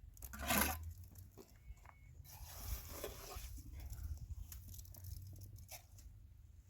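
Irregular rustling and scraping handling noises, the loudest a short burst about half a second in, over a steady low rumble.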